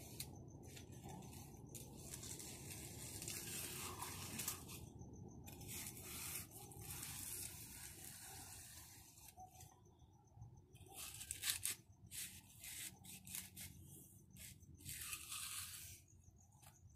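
Steel hand concrete edger scraping along the edge of a partly set concrete sidewalk, in repeated strokes that start and stop with short pauses between them.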